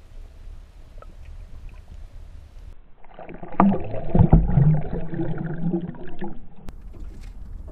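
Muffled underwater sloshing and gurgling from a camera held below the surface as a released striped bass swims off. A burst of water noise begins about three seconds in, with a couple of heavy thumps from the fish's tail kick, then settles back to a low wash.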